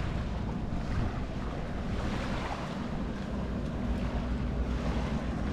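Steady wind noise on the microphone over small waves washing onto a sandy shore.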